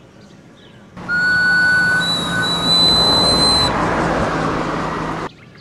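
A loud, shrill whistle blast over a hissing rush, held about four seconds. It starts and cuts off abruptly, and its pitch steps higher partway through.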